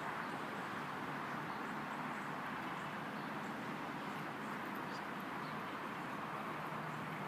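Steady outdoor background noise, an even hiss without distinct events.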